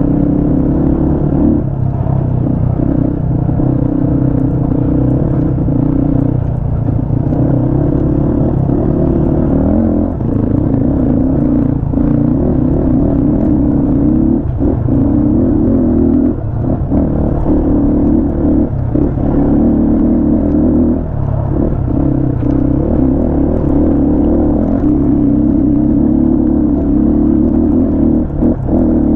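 A 250 cc off-road motorcycle engine running steadily under throttle while riding. Its note dips briefly several times as the throttle is eased.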